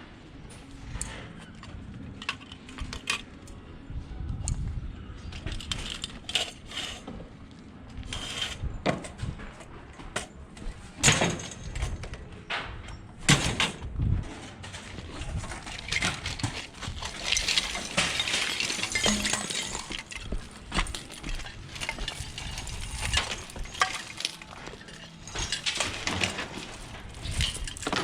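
Scrap metal clanking and clinking as pieces are handled and dropped, with irregular sharp knocks and a denser stretch of rattling clatter partway through.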